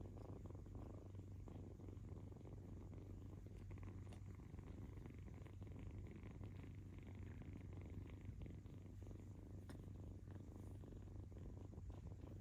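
Kitten purring steadily, a continuous low rumble.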